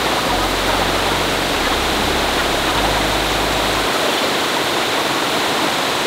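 Waterfall: water pouring over tiered limestone ledges in a steady, even rush.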